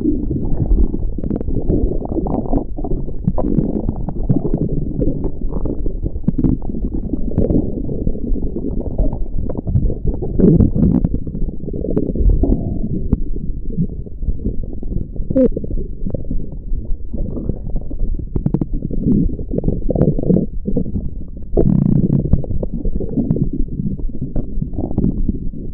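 A person's stomach growling and gurgling without a break, in low rumbles that swell and fade irregularly.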